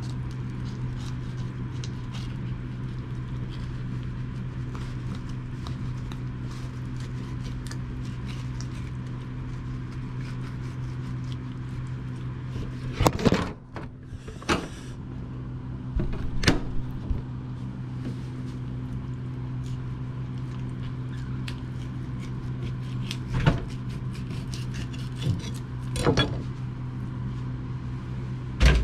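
Knife cutting along a Korean rockfish to take off a fillet, with small scrapes and clicks. Beneath it runs a steady low mechanical hum. Several sharp knocks come, the loudest about 13 seconds in and again just before the end.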